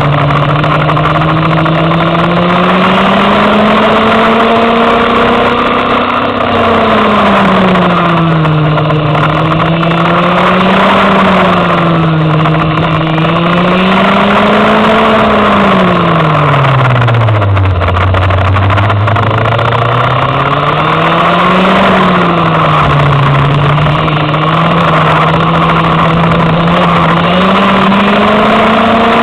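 Go-kart engine heard from on board while lapping. Its pitch climbs and falls repeatedly as the kart accelerates and slows through the corners, dropping lowest a little past halfway before rising again.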